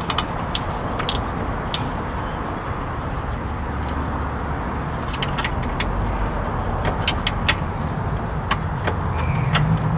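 Light metallic clicks and taps of a hand tool on VW Beetle front-suspension parts as the shock is fitted, a few early and a cluster of them past the middle, over a steady background rumble.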